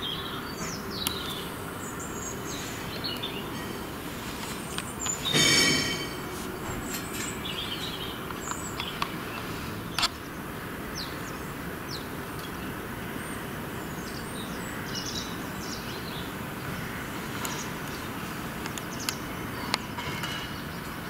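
Outdoor ambience: steady low background noise with small birds chirping on and off. A short, loud pitched sound comes about five seconds in, and a sharp click about ten seconds in.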